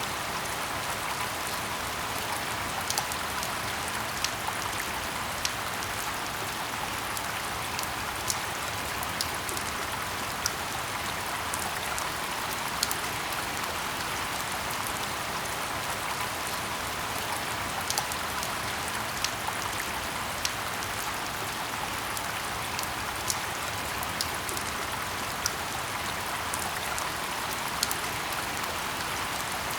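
Steady rain falling in a forest: an even hiss, with sharp single drops striking close by every second or so.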